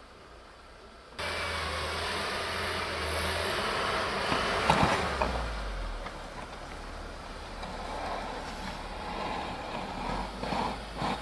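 UAZ Patriot SUV's engine running under load as it ploughs through deep snow, with the tyres churning the snow. The sound starts abruptly about a second in, the engine note drops about halfway through, and there are louder bursts in the middle and near the end.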